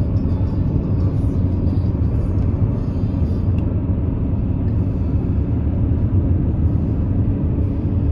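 Steady low rumble of a moving vehicle, engine and tyres on the road, heard from inside the cabin while driving.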